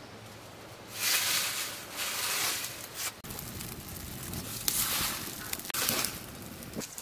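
Wood fire burning in an earthen clay stove, with several bursts of hissing, crackling noise, the loudest about a second in.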